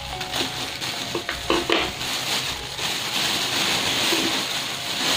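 Plastic bag crinkling and rustling as it is handled and opened, with a few sharp crackles in the first two seconds, then steady rustling.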